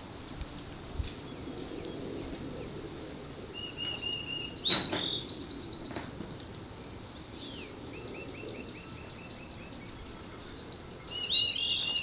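A small songbird singing: a burst of quick, high, repeated chirping notes about five seconds in and again near the end, with a softer run of notes in between.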